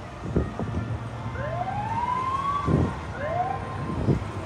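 Emergency-vehicle siren sounding in two rising whoops, the first long and the second short, over a low rumble, with gusts of wind thumping on the microphone.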